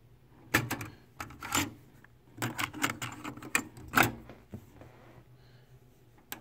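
Plastic clicks and clacks of a cassette being loaded into a Yamaha KX-W232 double cassette deck, with a loud clack about four seconds in as the cassette door is pushed shut, and a click near the end as a transport button is pressed.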